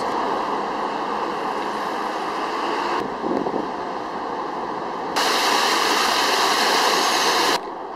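Steady street and traffic noise for the first few seconds, then the louder hiss and splash of water pouring down the steps of a stepped fountain from about five seconds in. The water cuts off suddenly near the end.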